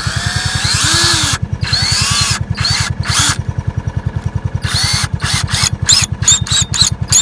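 Cordless drill turning a nut-driver extension on a worm-drive band clamp: a few longer runs with the motor whine rising and falling, then a quick series of short trigger bursts near the end as the clamp is run down tight. A steady low rhythmic throb runs underneath.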